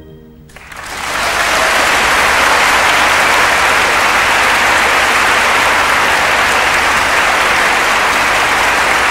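Theatre audience applauding at the end of a ballet variation, starting about half a second in, swelling over the next second, then holding steady and loud.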